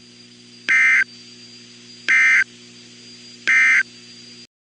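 Emergency Alert System end-of-message (EOM) data tones: three identical short, buzzy digital bursts about a second and a half apart, signalling the end of the alert broadcast. A faint steady hum lies underneath, and everything cuts off suddenly near the end.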